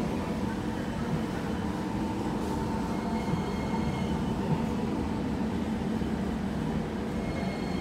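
Kawasaki–CRRC C151B electric multiple unit train at a station platform: a steady rumble and hum, with faint high whines coming in about three seconds in and again near the end.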